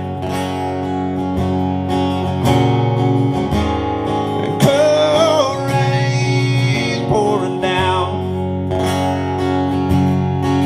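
Strummed acoustic guitar playing an instrumental passage between verses of a country song, with a brief wavering held note about five seconds in.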